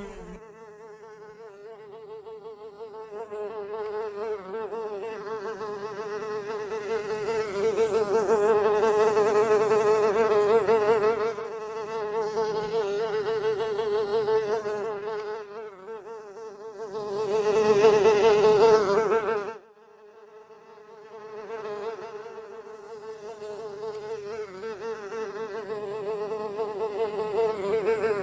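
A fly buzzing in flight: a steady, wavering drone that swells and fades several times. It is loudest about two-thirds of the way through, cuts off suddenly, then builds back up.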